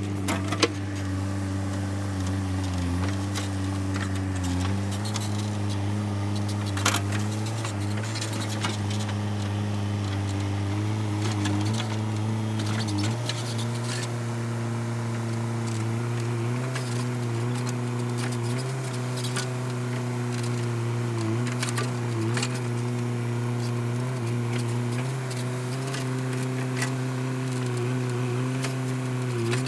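JCB 3DX backhoe loader's diesel engine running steadily, its note stepping up slightly about halfway through, with scattered light clicks and knocks.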